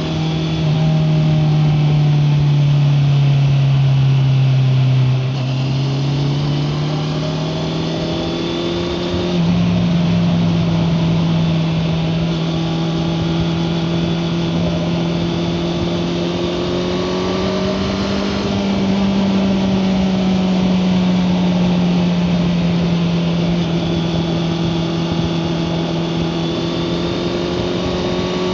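Honda CBR650R inline-four engine running under way at steady cruising revs, its note drifting gently up and down. It eases off with a dip in loudness about five seconds in, and the pitch steps up suddenly about nine seconds in.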